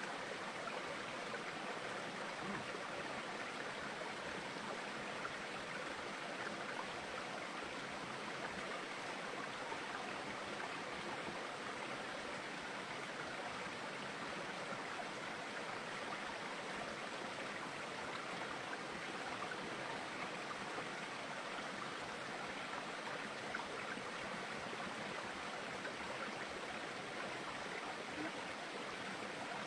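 Steady, even rush of running water, like a stream.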